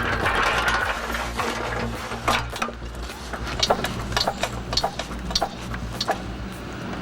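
Engine-driven machinery running with a steady low hum, overlaid from about two seconds in by irregular sharp knocks and clacks.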